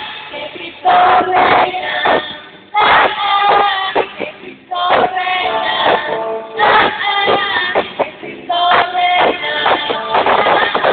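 Live worship music: a band with singing voices performing a Catholic praise song, with loud accented chords about every two seconds.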